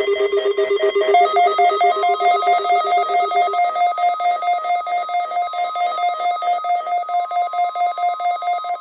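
Weather radio receiver's electronic alert alarm beeping rapidly, about five beeps a second, set off by the NOAA weekly test signal; the beeps change pitch about a second in and again midway.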